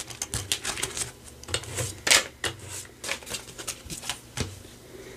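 Paper dollar bills and the plastic pocket pages of a ring binder rustling as pages are flipped and bills are handled: irregular short rustles and light clicks that die down about four and a half seconds in.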